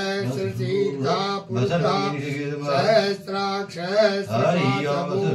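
A man chanting Sanskrit puja mantras in a continuous recitation, with a couple of short breaks for breath.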